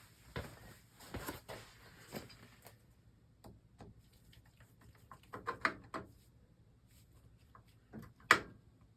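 Hands working on oil burner parts and tools: scattered light clicks and knocks, the loudest a sharp knock about eight seconds in.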